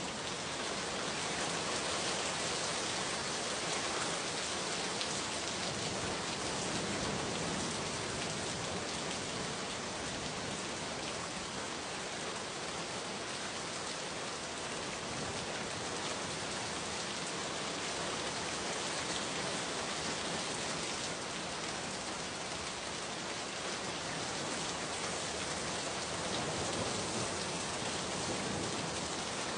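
Steady rain falling: an even hiss of many drops on a surface.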